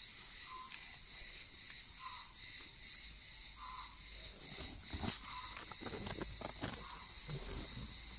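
Steady high-pitched insect chorus, with a few soft scuffs and rustles about halfway through as two kittens play-fight on stones and gravel.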